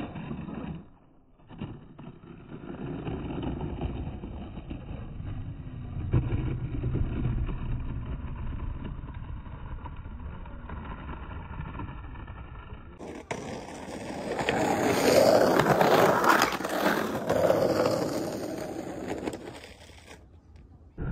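Skateboard wheels rolling and sliding on a concrete quarter-pipe, a rough rumbling scrape that swells to its loudest about two-thirds through and then fades.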